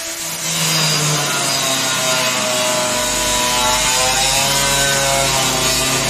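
Angle grinder starting up and grinding into a steel drum, a loud harsh whine whose pitch dips and rises as the disc bites into the metal.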